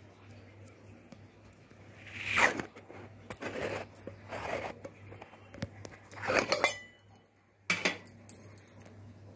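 A dinner plate being moved on a kitchen counter: several short scrapes and rattles, the loudest about two seconds in, over a faint steady hum.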